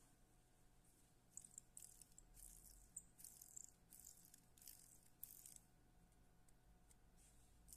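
Faint, quick rustling and scratching strokes from hands handling fly-tying materials on a hook held in a vise. They come in a run of about a dozen starting a second in, over a faint steady hum.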